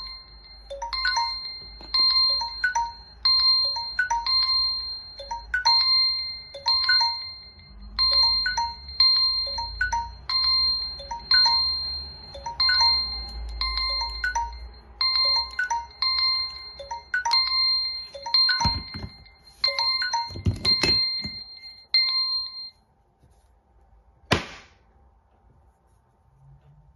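Samsung Galaxy S9 timer alarm ringing: a bright chime pattern repeating about once a second, which cuts off suddenly about 23 seconds in. A few knocks of a phone being handled come near the end of the ringing, and a single sharp click follows shortly after it stops.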